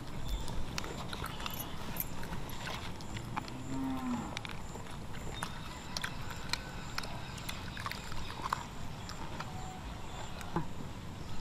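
A cow lowing once, briefly, about four seconds in, over steady low background noise with scattered sharp clicks and crackles.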